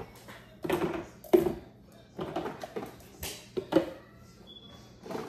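Plastic baby bottles and parts knocking and clattering as they are put into the plastic chamber of an electric steam bottle sterilizer. About half a dozen short knocks come irregularly, the loudest about a second and a half in.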